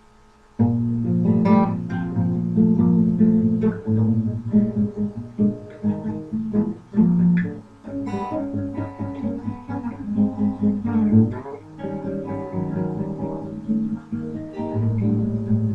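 Guitar music, notes and chords plucked and strummed, starting abruptly about half a second in.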